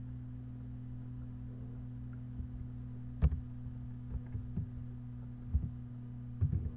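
A few scattered clicks and taps from a computer keyboard and mouse, the loudest about three seconds in, over a steady low electrical hum.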